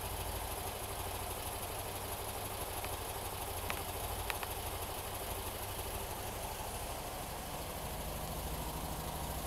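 Air-cooled VW flat-four, a 1914 cc build with port-polished 040 heads and Kadron carburettors, idling steadily through a German Look exhaust. A couple of faint ticks sound about four seconds in.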